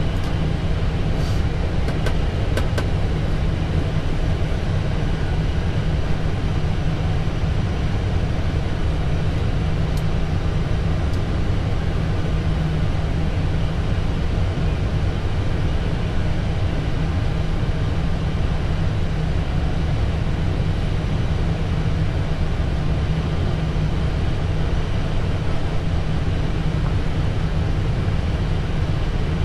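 Steady cockpit noise of an Airbus A320 waiting on the ground, its engines at idle, a constant low hum with an even hiss above it.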